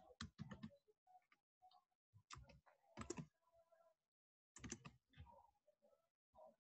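Faint keystrokes on a computer keyboard: quick taps in short clusters, with a pause of about a second near the middle.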